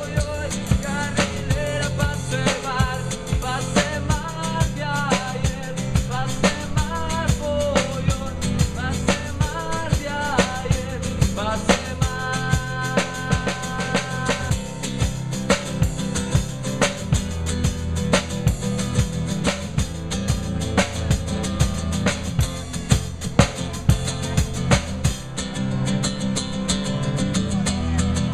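Upbeat acoustic band music: a busy drum kit over a steady bass line, with a nylon-string guitar and a wavering melody line in the first half and a few held notes near the middle.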